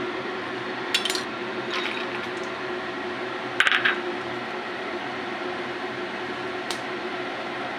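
Hot oil sizzling steadily in a kadhai as cashews fry, with short clinks of a steel strainer and slotted spoon against the pan: once about a second in, again near two seconds, a louder rattle of clinks around three and a half seconds, and once near the end.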